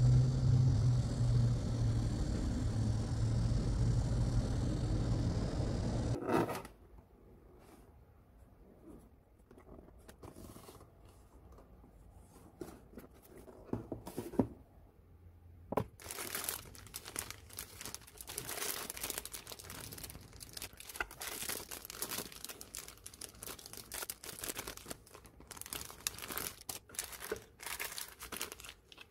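A steady low rumble for about the first six seconds that cuts off suddenly. After a quiet stretch with a few taps, clear plastic bags of model-kit parts crinkle and rustle as they are handled in the box.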